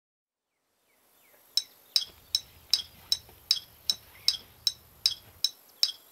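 Sharp clinks tapped out on a ketchup bottle in a steady beat, about two and a half a second, starting about a second and a half in: the opening pulse of a percussion track made from ketchup bottles. A faint low hum sits under the clinks for most of their run.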